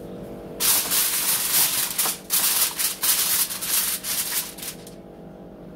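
Aluminum foil crinkling as hands press and crimp it down over the rim of a casserole dish, in a run of rustles with short breaks that begins under a second in and stops about five seconds in.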